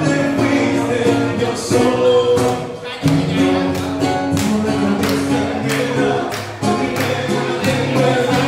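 Live acoustic band: a male singer at a microphone with acoustic guitar, over a steady beat.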